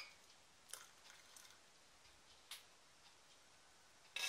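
Near silence broken by a few faint ticks and taps, with a short, brighter clink near the end.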